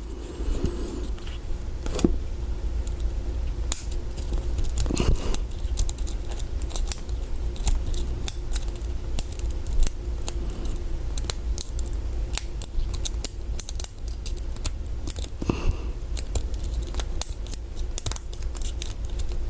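Hook pick and tension wrench working the 4-pin core of a Master Lock 140 padlock: many small metallic clicks and scratches as the pins are probed and set. A steady low hum runs underneath.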